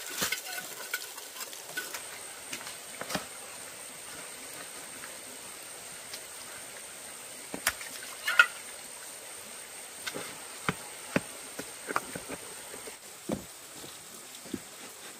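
Scattered sharp taps and knocks at irregular intervals, with a steady high-pitched insect drone from about two seconds in until near the end.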